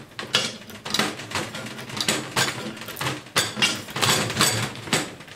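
Metal hand tools clattering and knocking on a steel-topped workbench: a quick, irregular run of sharp clanks and rattles as tools are picked up and handled.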